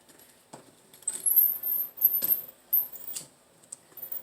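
Handling of a window screen frame and spline roller: a few light clicks and knocks, with high squeaky scraping of metal and rubber between about one and two seconds in.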